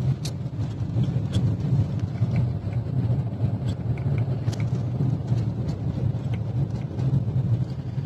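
Car driving slowly, heard from inside the cabin: a steady low rumble of engine and tyres.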